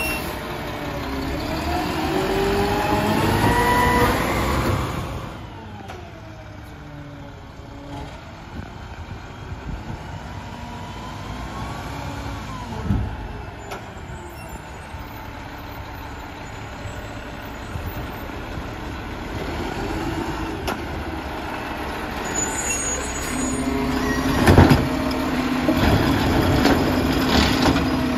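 Mack LR garbage truck's diesel engine revving, its pitch climbing for the first few seconds, then running more quietly. Near the end a steady hydraulic hum sets in as the McNeilus ZR automated arm works a cart, with one sharp clank.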